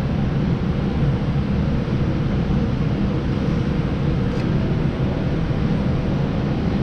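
Steady air-handling noise: a constant rushing hiss with a low hum beneath it, unchanging throughout. A faint click about four seconds in.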